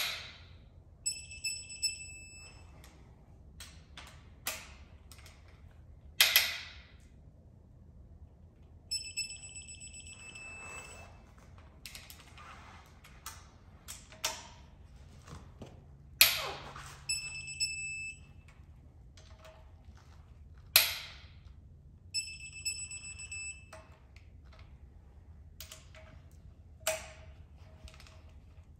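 Digital torque wrench beeping in short runs of high beeps as each cylinder head bolt reaches its torque setting. Between the beeps come sharp cracks and smaller knocks from the bolts and socket as the wrench pulls; the bolts crunch in threads that still hold some rust.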